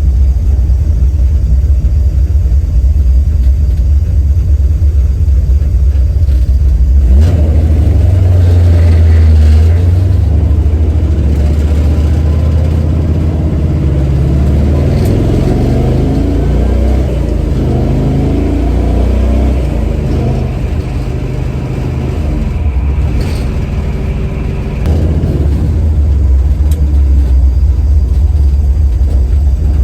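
1970 Chevy Nova's engine running on the road: a steady low rumble that picks up and pulls harder about seven seconds in, eases off around twenty seconds in, and comes back on about twenty-five seconds in.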